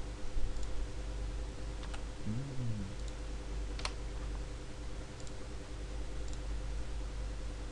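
Computer mouse clicking a handful of times, single sharp clicks a second or two apart, the loudest about four seconds in, over a steady low hum.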